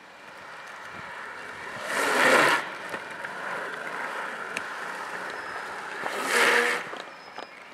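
Longboard wheels rolling on asphalt, a steady rushing noise that swells twice into louder scraping rushes, about two seconds in and again about six seconds in.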